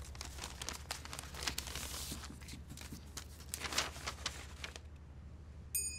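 Paper rustling and crackling as a letter is handled, with louder bursts about one and a half and nearly four seconds in. A thin high tone begins near the end.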